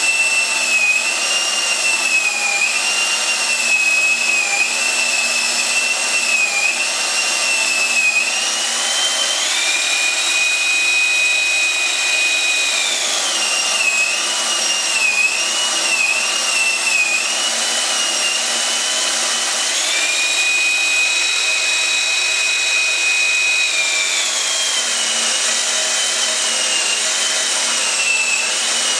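Electric drill motor running with a high whine whose pitch wavers up and down, as if under changing load. Twice it climbs to a higher pitch and holds it for about four seconds before dropping back.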